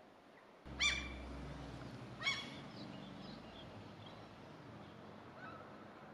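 Common gull giving two short, loud calls about a second and a half apart, over a brief low rumble. Faint high notes follow.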